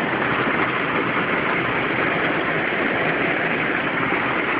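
A steady hiss with a low hum underneath, like the car's 3.8-litre V6 idling, holding even with no change.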